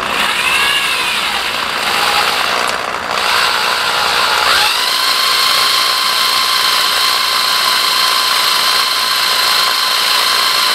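Corded electric drill running steadily, spinning the oil pump of a Ford 5.0 HO V8 through a priming shaft to build oil pressure before start-up. Its whine wavers at first, then rises in pitch about four and a half seconds in and holds steady.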